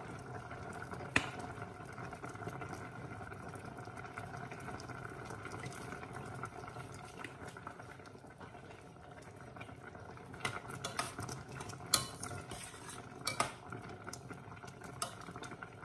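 Curry simmering in a stainless steel pot with a steady bubbling, and a metal spoon clinking against the pot as it is stirred: once about a second in, then several times in the last few seconds.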